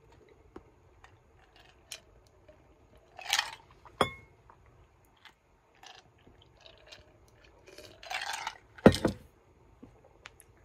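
Eating and drinking sounds at a table: small mouth and tableware clicks, two breathy noises, a glass clink with a short ring about four seconds in, and a heavy glass mug put down on the desk with a loud knock just before nine seconds in.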